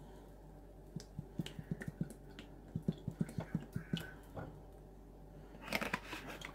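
Cooking oil glugging out of a plastic bottle into a frying pan: a quick, irregular run of low gurgling pops for a few seconds, then a short plastic rustle near the end as the bottle is recapped.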